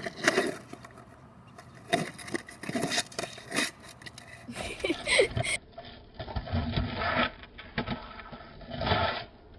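Skateboard on concrete and asphalt: wheels rolling and scraping, with repeated sharp clacks of the deck and wheels striking the ground. About halfway through, the sound turns duller and more muffled.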